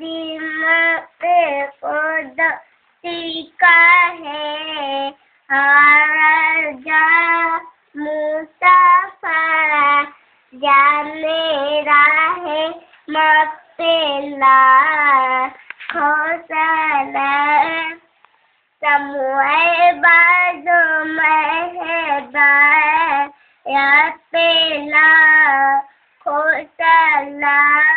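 A child singing alone with no accompaniment, a high voice carrying a melody in short phrases with brief silent pauses between them.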